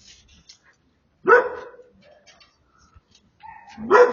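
Dog barking twice, a loud bark about a second and a half in and another near the end, with faint smaller sounds between.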